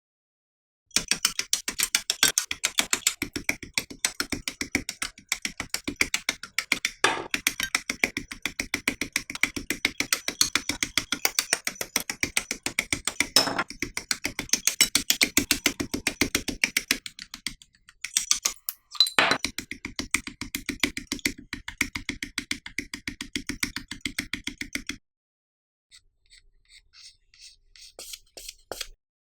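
Sandpaper or a sanding stick rubbed back and forth fast on a plastic model part, several strokes a second. The sanding breaks off briefly about two-thirds through and stops a few seconds before the end, followed by a few faint light taps.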